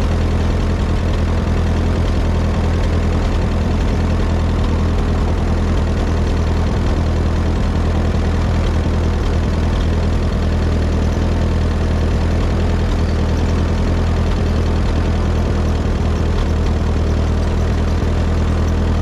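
1948 Ford 8N tractor's four-cylinder flathead engine running at a steady, even speed while the tractor drives along, with a low, unchanging tone.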